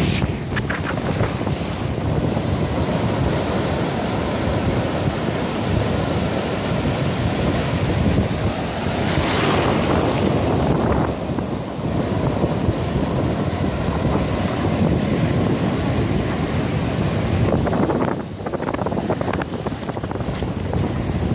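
Atlantic surf breaking close by, a steady rush of waves with one louder crash about nine seconds in, and wind buffeting the phone's microphone.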